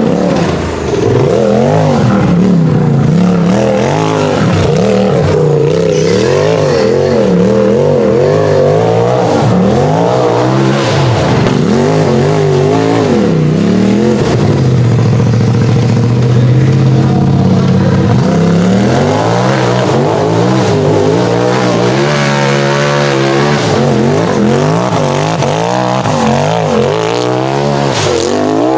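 Side-by-side UTV engine revving hard and dropping off over and over under load as it climbs a steep rocky hill, with a stretch of steady high revs about halfway through.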